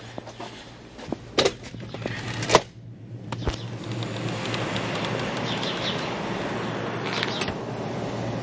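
Sharp clacks and clicks of a glass exit door's push bar and latch as the door is pushed open. Then a steady hiss of outdoor noise.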